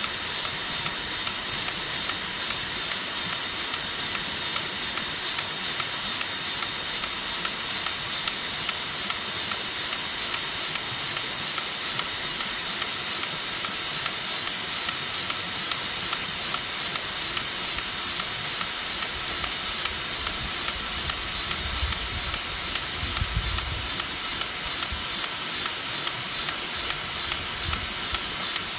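Battery-powered grease gun running steadily, with a high motor whine and a rapid regular pumping tick, forcing grease into a mini excavator's track adjuster to push the idler wheel out and tighten the loose rubber track. It cuts off at the end.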